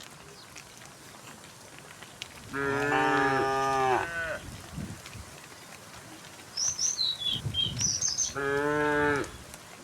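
Cows mooing twice: a long moo about two and a half seconds in and a shorter one near the end. Between them a bird gives a quick series of high chirps.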